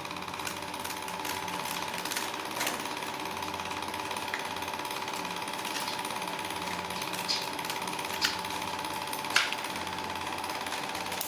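A power tool running steadily with a fast, even hammering beat, and a few sharp clicks.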